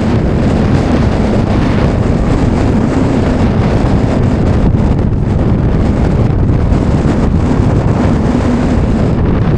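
Gale-force wind buffeting the microphone: a loud, steady rumble with no breaks.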